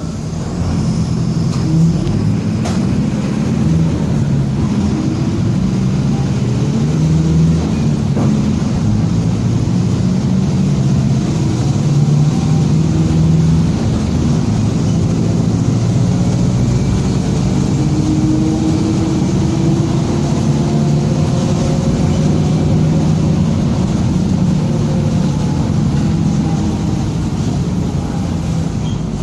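Mercedes-Benz OF-1722M city bus under way: its diesel engine runs with a steady drone that shifts in pitch as the bus drives, with the rear differential growling, a whine that slowly glides in pitch.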